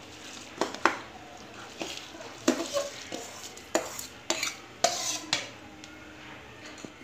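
Slotted metal spoon scraping and clinking against a steel bowl and pot as soaked basmati rice is pushed out into boiling water: a run of sharp clinks and scrapes over about five seconds.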